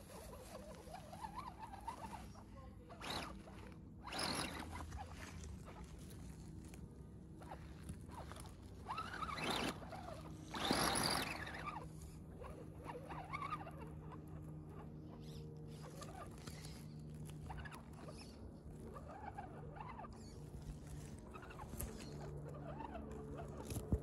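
Electric motor and geared drivetrain of an RC scale crawler with a Land Rover Defender body whining steadily at a low crawl. A few louder scrabbling bursts of the tyres in leaf litter and dirt, the loudest about eleven seconds in.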